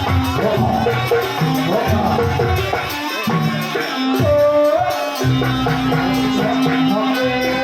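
Live jaranan music: a Javanese ensemble of drums and tuned percussion playing a steady, lively rhythm under a melody, with one note held for about two seconds in the second half.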